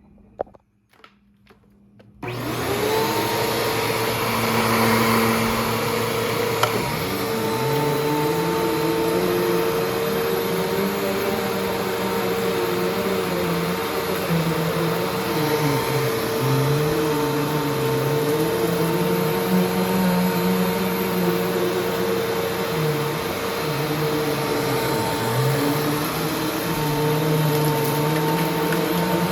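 Eureka Alimta vacuum cleaner: a few clicks, then its motor switches on about two seconds in and runs steadily with a high whine, the pitch of its lower hum rising and falling as it works.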